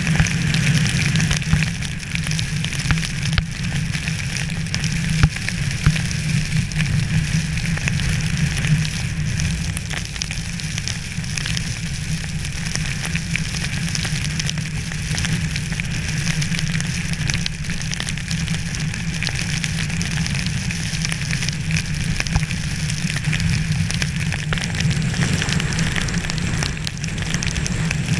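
Wintry precipitation falling steadily on outdoor surfaces: a dense hiss of many small ticks, with a steady low rumble underneath.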